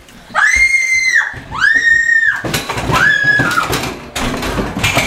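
A girl screaming three times in long, high shrieks, followed by a stretch of loud knocking and clatter.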